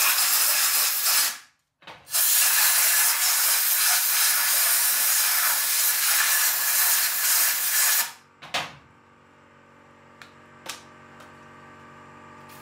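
Compressed-air blow gun blasting air into a brake caliper to clean out its bores: a loud hiss for just over a second, a brief pause and a short puff, then a long blast of about six seconds that cuts off, followed by one last short puff and a few faint clicks.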